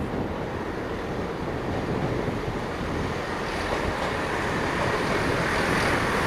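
A train moving through the station: a steady rushing rumble with no distinct tones, growing slightly louder toward the end.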